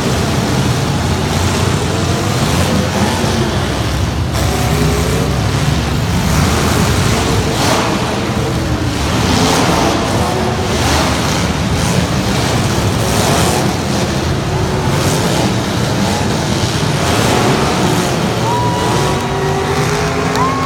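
Big truck engines running loudly and revving, their pitch rising and falling, with a short steady high tone near the end.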